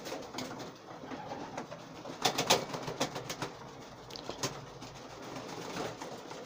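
Racing pigeons cooing. Several sharp claps of flapping wings come through, loudest about two and a half seconds in.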